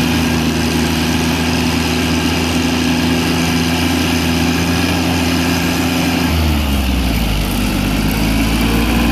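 The 18 hp three-cylinder Yanmar gasoline engine of a 1988 John Deere 322 garden tractor running steadily while driving. About two-thirds of the way through, its note drops and settles at a lower speed.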